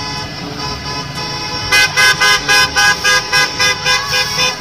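Electronic sound effects from a toy school bus's sound chip: a steady horn-like tone, then from about a second and a half in a quick run of beeping notes, about four a second.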